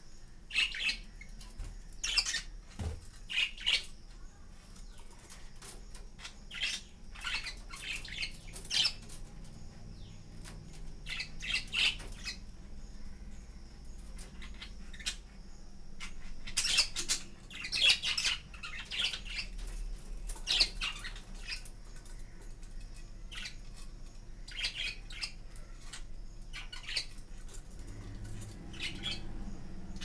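A flock of budgerigars chirping and squawking in short, high calls that come in scattered clusters, busiest about halfway through.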